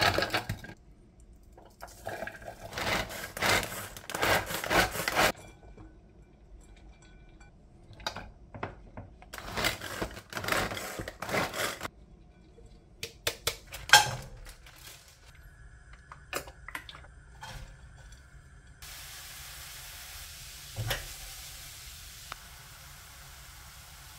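Kitchen food-prep sounds: dishes, bowls and utensils clattering and scraping in irregular bursts, with one sharp knock about halfway through. In the last few seconds there is a steady faint sizzle of food frying in a pan.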